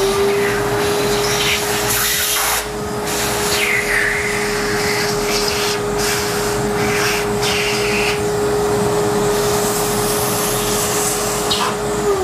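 Vacuum cleaner running at a steady pitch, its nozzle sucking coffee grounds out of an espresso grinder's burr chamber; the rush of air shifts as the nozzle moves around, and the motor starts to wind down at the very end.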